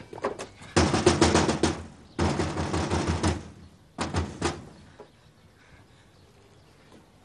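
Rapid knocking on a window pane in two long flurries and a short final one, then quiet.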